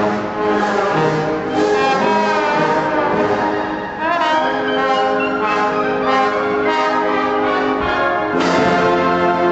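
Military band's brass playing a trombone feature, the trombones sliding up and down between notes over sustained brass chords.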